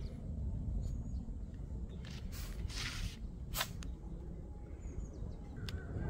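Wind rumbling on the microphone on an open deck, with a short rustle about two and a half seconds in and a sharp click just after.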